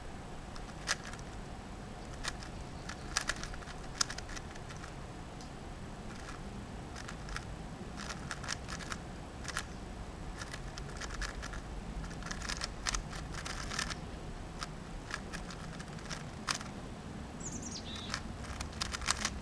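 A 3x3 Rubik's-type speed cube being turned fast by hand: irregular runs of quick plastic clicks and clacks as the layers snap around, over a steady low background rumble. A bird gives a short falling chirp near the end.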